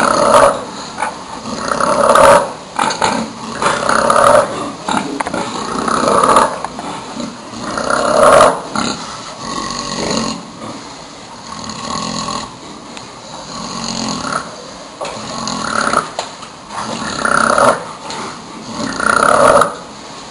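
Sleeping pig snoring, one loud rasping snore about every two seconds, softer for a few breaths in the middle.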